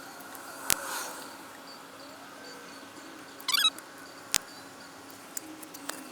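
Caulking gun at work on a wooden speaker box: a sharp click, a brief high wavering squeak a few seconds in, then another click and a few small ticks.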